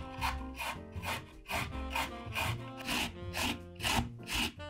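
Food being rubbed across a hand grater in steady rasping strokes, about three a second, over soft background music.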